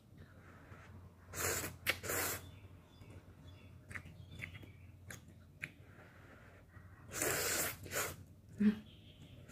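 Ramen noodles being slurped up: two pairs of loud slurps, about a second and a half in and again about seven seconds in, with small wet chewing clicks between them and a short sharp sound near the end.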